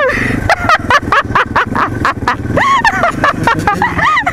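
Dirt bike engine running slowly in low gear over rocks, with many irregular sharp clicks and clacks.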